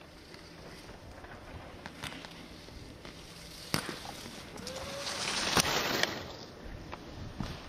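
Ski edges scraping and carving across hard snow as a giant slalom skier passes close: a hiss that builds from about four seconds in, peaks near six seconds with a couple of sharp knocks, then fades.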